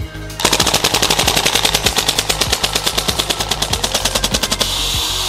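Northeast MP2A1 UZI gas blowback airsoft gun firing a rapid full-auto burst on propane, a fast even string of shots lasting about four seconds. The shots stop abruptly and give way to a steady hiss of gas. The mag dump is running into trouble.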